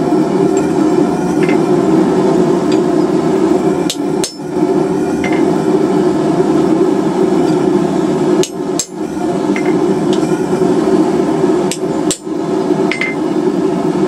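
Hammer blows driving a hot-cut chisel into a hot steel bar to cut the scale notches of an alligator twist: continuous hammering that breaks off briefly about every four seconds.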